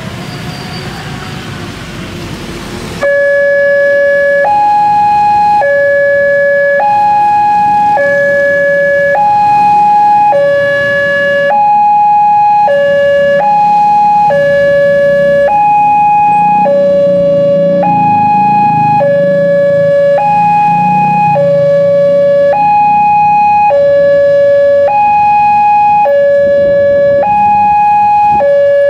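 Railway level-crossing warning siren switching on about three seconds in, then alternating evenly between a low tone (about 560 Hz, between C#5 and D5) and a high tone (about 840 Hz, near G#5), each held for about a second. It warns road users of an approaching train. Road traffic noise is heard before it starts, and a motor rumble swells under it midway.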